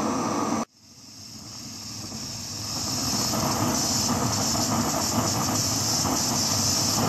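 Rothenberger Multigas 300 cartridge gas torch, its flame running with a steady hiss into a metal exhaust tip. The sound cuts out abruptly just over half a second in, then swells back over the next two seconds and holds steady.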